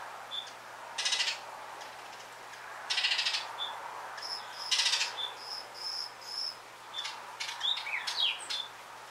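Birds calling: three short, harsh chatters about two seconds apart, with sharp high chip notes between them. A run of thin, high, even notes comes in the middle, and a few quick down-slurred calls come near the end.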